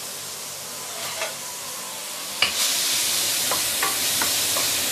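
Chopped shallots and garlic sizzling in oil in a stainless steel wok. About halfway through a wooden spatula starts stirring them: the sizzle turns louder and brighter, with short scraping taps of the spatula against the wok.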